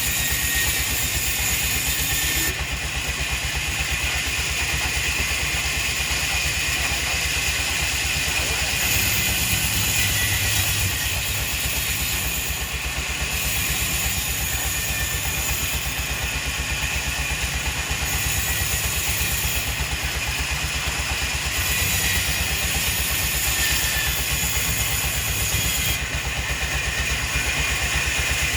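Sawmill machinery running steadily with a fast, even rattle and a high hiss, its tone shifting every few seconds.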